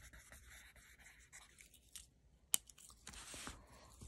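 Pen scratching on lined notebook paper in a run of short strokes as words are written. About two and a half seconds in there is one sharp click, the loudest sound, followed by a brief rustle.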